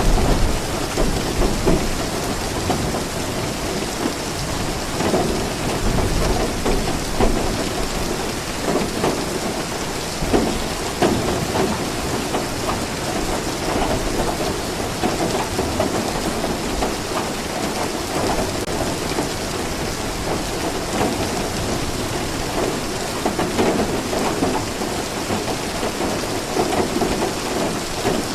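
Steady rain falling, with low rumbles of thunder swelling at the start and again around five seconds in.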